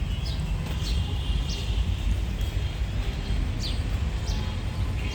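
Birds chirping: short, falling high notes repeated about once a second over a steady low rumble of outdoor background noise.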